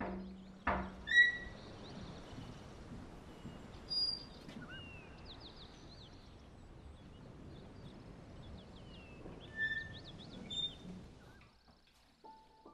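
Outdoor ambience of birds chirping and calling over a steady hiss, with a sharp knock and a loud call about a second in. Near the end the ambience drops away and a sustained music tone starts.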